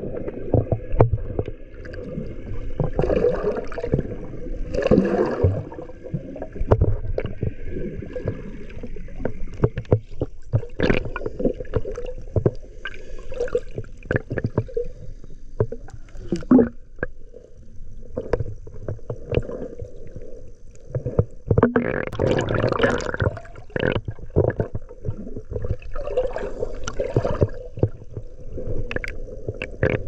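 Sea water sloshing and gurgling around a camera held at and just under the surface, with many sharp knocks and clicks as it moves through the water.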